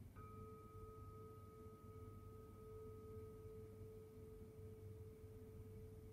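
Buddhist bowl bell (rin) struck once, then ringing on with a steady pure tone and a fainter higher overtone that slowly fades away.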